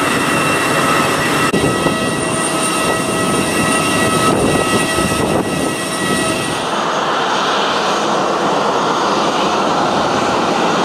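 Jet airliner noise on an airport apron: a loud, steady rush with several steady whining tones. The whine drops out about two-thirds of the way through, leaving a broader rush.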